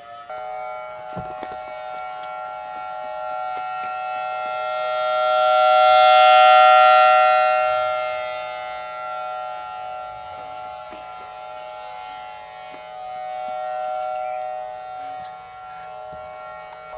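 Outdoor warning siren sounding a steady chord of several tones. It swells to its loudest mid-way, fades, then swells again more softly near the end.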